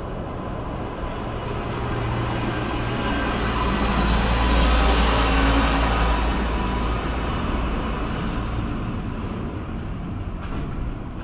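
Jet airliner engines passing: a deep rumble swells to a peak about five seconds in, with a faint whine on top, then slowly fades.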